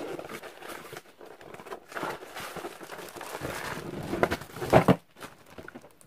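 Cardboard box and plastic wrapping rustling and scraping as a tower fan is slid out of its box, with a few sharper bumps about two-thirds of the way through.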